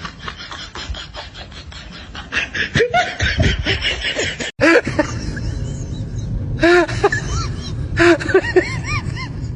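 High-pitched laughter-like vocal sounds in quick bursts, each a short rise and fall in pitch, starting after an abrupt cut about halfway through; before the cut, a fast rapid pulsing sound.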